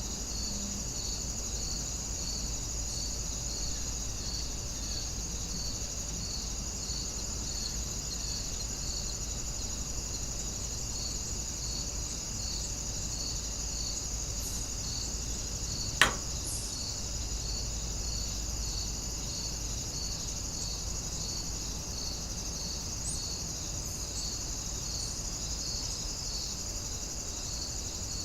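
Warm nature ambience of crickets chirping steadily: a continuous high trill with a slower regular pulse about one and a half times a second over a low steady rumble. A single sharp click sounds about halfway through.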